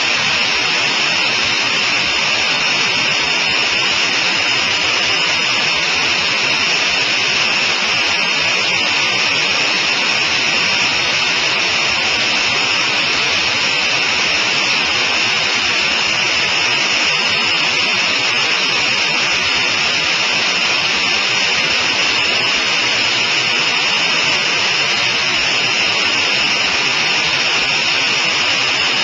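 Sonerai I's engine and propeller in cruising flight, heard from the cockpit together with the rush of air past the canopy: a steady, unchanging drone and hiss.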